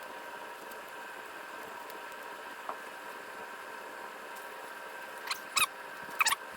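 A few short, sharp metallic clicks near the end, from tools and parts being handled while a bicycle wheel hub is reassembled, over a steady faint hum.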